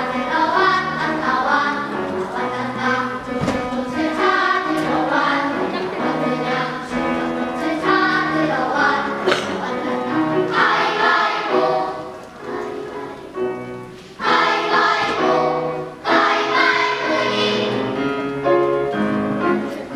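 Children's choir singing in harmony. Near the two-thirds mark it drops back briefly, then comes in loud again twice.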